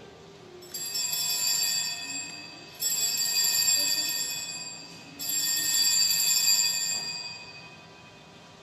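Altar bells rung three times during the elevation of the chalice at the consecration. Each ring is high and bright, starts sharply and fades over about two seconds.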